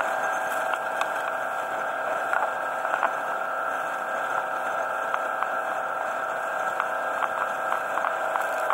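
Steady drone of a boat under way, with the hiss of wind and water and scattered faint ticks.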